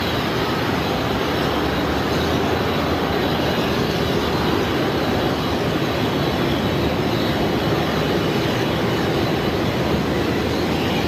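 Boeing 777-200 jet engines running in a steady, loud rush of noise as the airliner lands and rolls down the runway.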